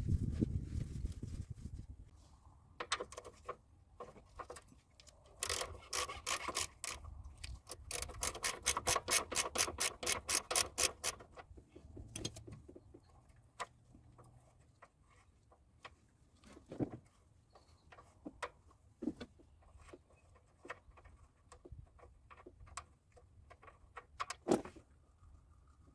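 Ratchet wrench clicking in two quick runs of even clicks, among scattered knocks and clinks of tools on metal.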